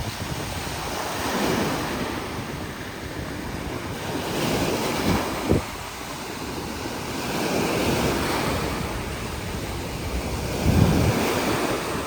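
Sea waves washing in, swelling and falling back every few seconds, with wind buffeting the microphone in short low rumbles.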